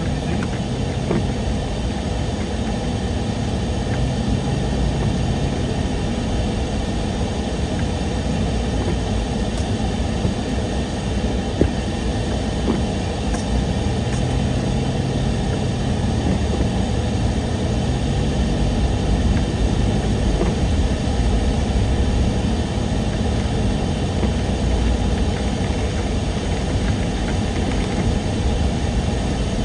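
Car driving slowly down a rain-soaked road, heard from inside the cabin: a steady low engine and road noise, its engine pitch drifting gently.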